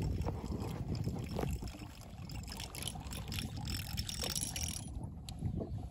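Rod-and-reel fishing tackle clicking and rattling in a wooden boat, over a steady low rumble.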